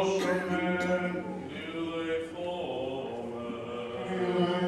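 Male voices chanting a Greek Orthodox (Byzantine) funeral hymn unaccompanied, in long melodic phrases over a low held note.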